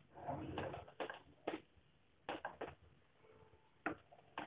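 Wooden spatula stirring thick, reducing milk in a metal pan: faint, irregular scrapes and soft knocks of the spatula against the pan.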